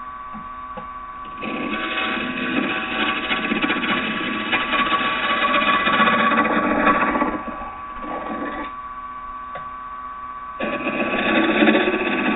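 Wood lathe running at about 950 RPM with a steady motor whine, while a carbide-tipped turning tool cuts into very green oak in two passes of several seconds of dense scraping noise. Between the passes, briefly, only the lathe is heard.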